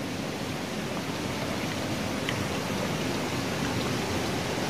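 Steady hiss of water, even and unbroken, with no other clear event.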